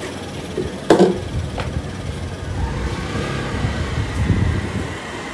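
Motor scooter engine running, heard from above, with a sharp loud knock about a second in and a fainter one just after.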